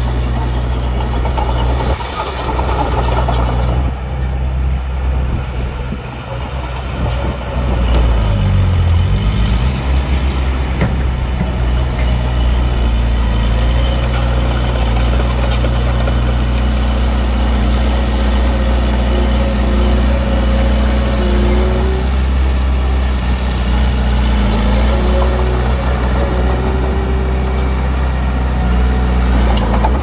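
Diesel engine of heavy earthmoving equipment running steadily, with a brief dip and rise in engine speed about eight to nine seconds in.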